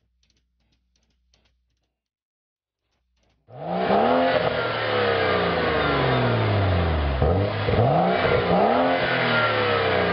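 Near silence, then about three and a half seconds in a 2011 BMW 335i coupe's turbocharged 3.0-litre straight-six, fitted with a Vishnu aftermarket exhaust and the stock downpipe, is revved at a standstill: the revs fall away, drop low, then rise and fall once more.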